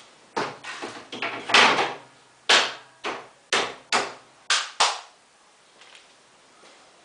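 A series of about eight short knocks and scrapes in the first five seconds, loudest about one and a half and two and a half seconds in, then quieter.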